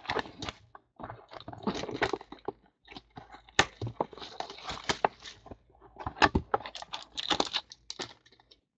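Cardboard trading-card boxes being handled and opened by hand: an uneven run of clicks, taps and rustles.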